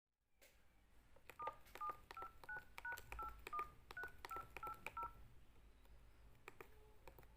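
Samsung SCH-F309 keypad tones, faint: about eleven short two-tone DTMF beeps, roughly three a second, each with a key click, as a code is keyed in. A few more key clicks follow near the end.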